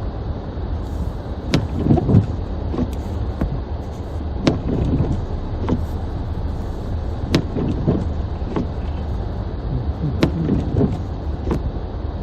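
Car driving on a snowy street, heard from inside the cabin: a steady low engine and road rumble, with sharp clicks about every second and a half.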